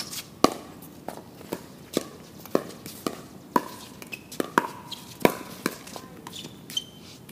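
Pickleball paddles hitting a plastic pickleball back and forth in a fast doubles rally at the net. Sharp pops come about two a second, and some have a short ringing tone after them.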